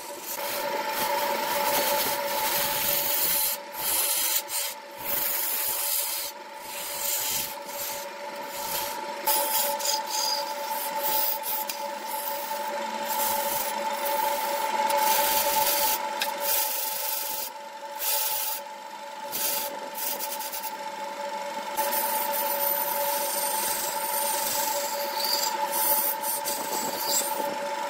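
A large wood lathe spins a wooden blank while a hand-held turning chisel cuts into it. The cutting edge makes a steady rasping scrape against the wood over a constant hum, and the scrape dips briefly several times as the tool eases off.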